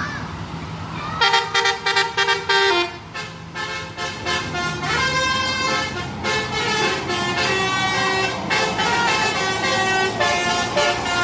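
Tour bus's multi-note 'telolet' musical air horn of the Basuri type, starting about a second in with a run of rapid short blasts and going on into longer held notes that change pitch like a tune.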